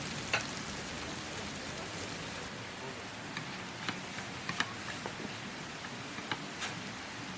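Steady rain hiss, with a scattering of sharp taps from single drops landing.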